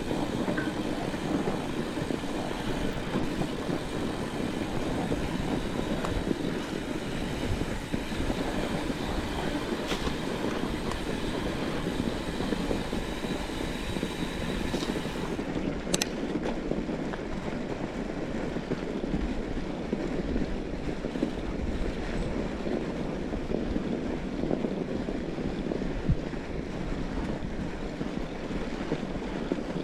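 Fat bike rolling along a snowy trail: steady tyre and riding noise, with a few sharp clicks from the bike.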